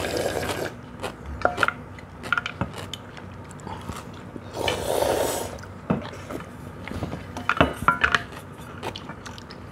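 People eating cold bean-soup noodles: scattered light clicks of chopsticks and spoons against stainless steel bowls, and a long slurp of noodles and broth about five seconds in.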